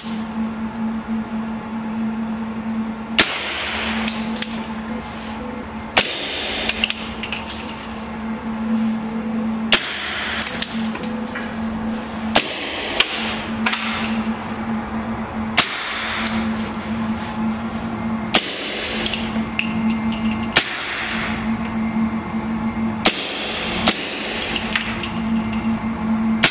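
Suppressed guns firing subsonic rounds: about nine single shots a couple of seconds apart, each with a short echo off the indoor range, over a steady low hum.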